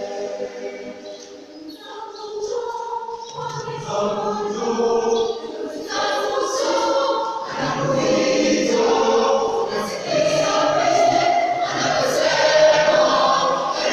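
Youth choir singing in parts. It softens briefly near the start, then low voices come in and the singing grows fuller.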